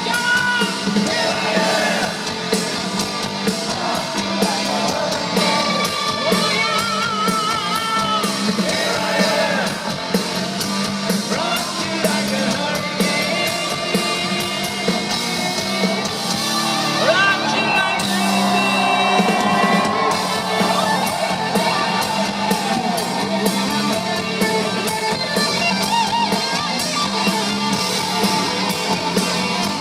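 Rock music: electric guitars and a drum kit, with a singing, shouting lead voice.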